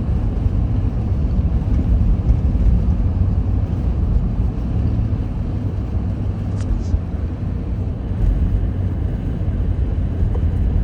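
Steady low rumble of a car's tyre and engine noise heard from inside the cabin while driving on a snowy highway. Two faint ticks come about six and a half seconds in.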